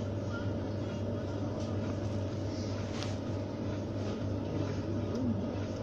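A steady low mechanical hum under a constant even background noise, with faint murmurs of voices now and then.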